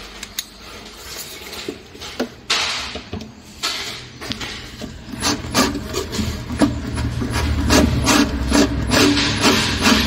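A few knocks as a screw is set on the bit, then a cordless drill driving screws through a steel angle strip into the wooden cabinet side. From about halfway in it runs louder and denser, with many sharp clicks.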